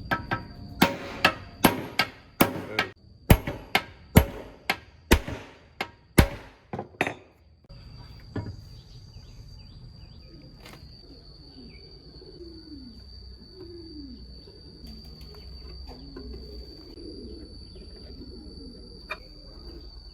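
Hammer blows, about two a second, over the first seven seconds, then they stop. A faint steady high-pitched whine carries on after them, and there is one more knock near the end.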